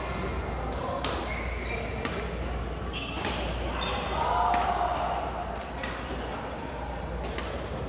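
Badminton rackets hitting a shuttlecock in a rally, sharp hits about once a second, with voices in the hall behind.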